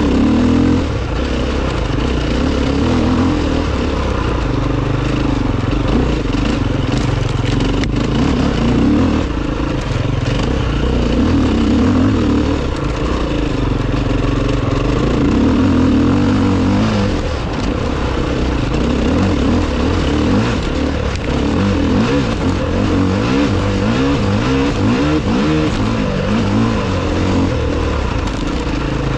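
Enduro motorcycle engine running hard under load, its pitch rising and falling continuously as the throttle opens and closes.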